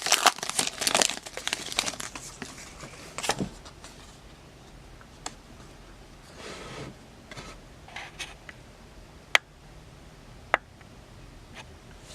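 A foil Pokémon booster pack wrapper crinkles and tears open for the first few seconds. Then comes quieter handling of the pack and cards, with a few sharp clicks.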